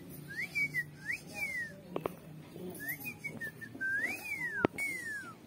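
Indian ringneck parakeet whistling: a string of clear whistled notes that rise and fall, several sliding downward, with a burst of short notes in the middle. Two sharp clicks fall in between, one about two seconds in and one near the end.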